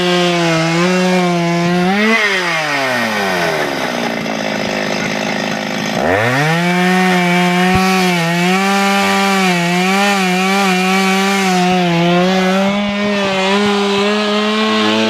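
Chainsaw running at high revs while cutting wood, a tree trunk grown up among the car's parts. About two seconds in the revs fall away. Around six seconds in they climb back and hold high, then drop again at the very end.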